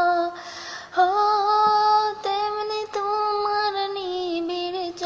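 A woman singing a Bengali song, drawing a quick breath about half a second in, then holding long notes that step between a few pitches.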